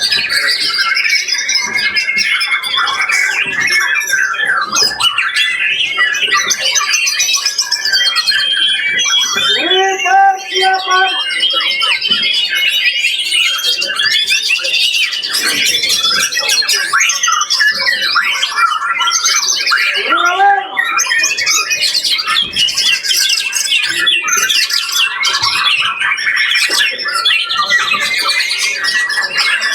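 Several songbirds singing at once in a dense, unbroken chorus of fast, overlapping phrases and chatter, the sound of competing birds on the line at a songbird contest.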